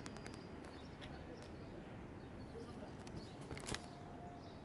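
Quiet outdoor background noise with a few faint clicks, a cluster as it begins and another a little before the end.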